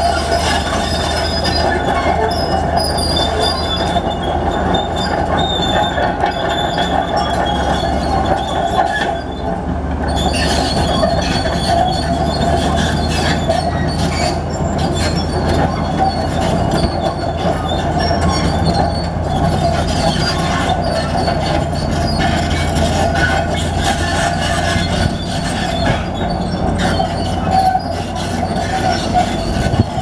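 Komatsu D65P crawler bulldozer moving dirt: its steel tracks squeal steadily and clank over a low diesel engine drone as it crawls forward under load.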